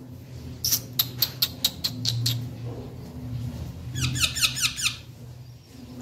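Young parakeets calling: a quick run of short, shrill squeaks, about five a second. After a pause comes a second rapid run of falling chirps.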